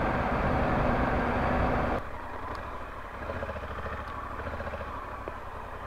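Honda Africa Twin motorcycle riding, with wind and road noise on the microphone. About two seconds in, the noise drops abruptly to the quieter low running of the engine at idle.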